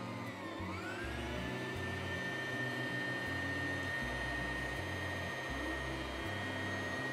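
Singer sewing machine's electric motor running the bobbin winder: a whine that rises in pitch over about the first second, then holds steady as the bobbin fills. Background music plays underneath.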